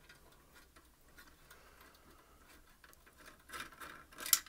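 Plastic top cap of a SIAMP toilet cistern fill valve being unscrewed by hand: faint clicks of plastic on plastic, then louder scraping and clicking near the end, ending in one sharp click.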